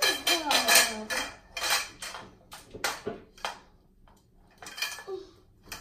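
Clicking and clattering of a toy storage organizer's rods knocking against its side panel as they are handled and fitted: a quick run of knocks in the first two seconds, then scattered single clicks.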